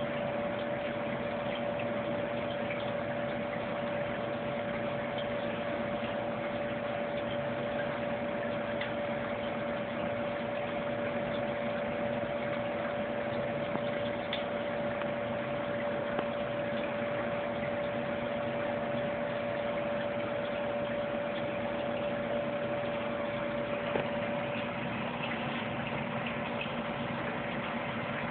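Steady hum over an even hiss, unchanging throughout, with a couple of faint ticks.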